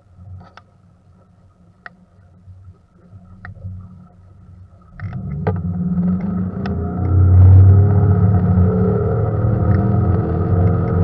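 Mercury 150 Pro XS outboard running low and quiet, then opened up hard about five seconds in: the engine note jumps in loudness and climbs as the boat accelerates onto plane.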